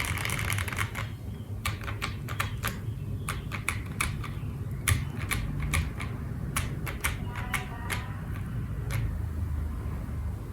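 Typing on an OwLab Voice65 mechanical keyboard: lubed Kon-momo switches in a PE plate under cherry-profile keycaps, clacking in an irregular run of several keystrokes a second.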